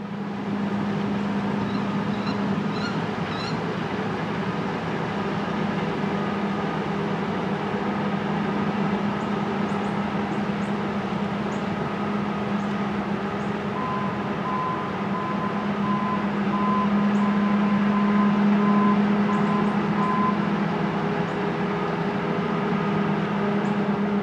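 An engine runs steadily with a low hum. In the second half, a machine beeps in a row of short, even beeps, about two a second, for several seconds.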